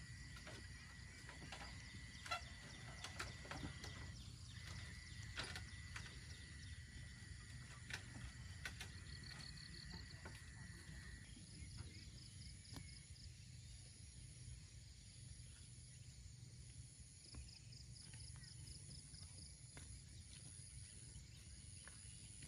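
Near silence: faint outdoor background with a thin steady high tone through the first half and a few light scattered clicks.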